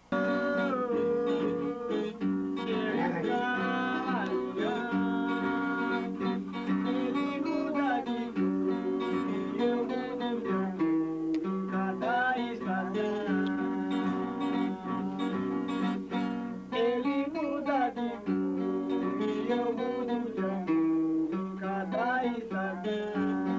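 Acoustic guitar playing a tune, plucked notes over sustained bass notes, starting abruptly.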